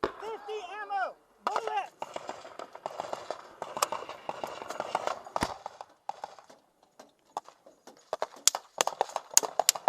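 Men shouting in the first two seconds, then a noisy stretch with scattered clicks. In the last two seconds comes a quick, irregular string of sharp, loud cracks of small-arms gunfire.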